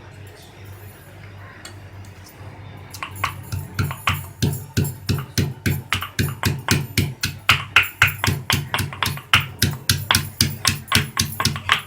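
Pieces of fresh ginger being pounded to crush them, a steady run of sharp knocks at about three a second starting about three seconds in.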